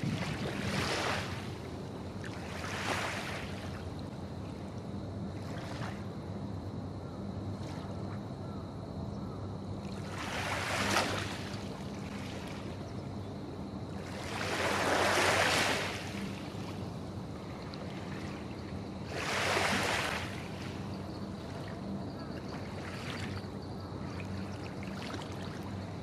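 Small, gentle waves lapping and splashing at a harbour inlet, in separate washes every few seconds, the loudest about halfway through, over a steady low hum.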